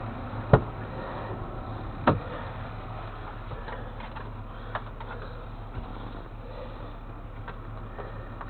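Two sharp knocks about a second and a half apart, then a few faint ticks, over the steady low hum of an idling engine.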